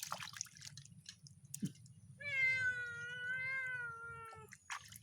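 A domestic cat meowing while being given a bath: one long, drawn-out meow starting about two seconds in, after a few scattered clicks.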